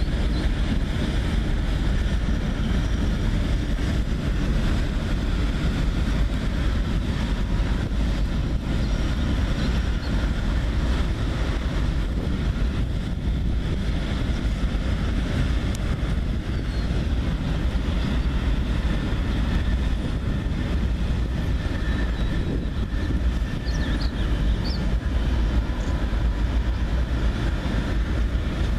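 Freight train rolling steadily across a steel deck girder bridge, the cars passing in a continuous rumble, with wind buffeting the microphone.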